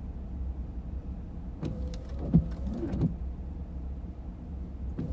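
Car idling while stopped, heard from inside the cabin as a steady low rumble, with a few short knocks and brief squeaky sliding sounds about two seconds in.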